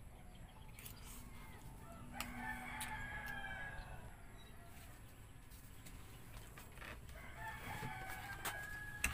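A rooster crowing twice, once about two seconds in and again near the end, with a few light clicks.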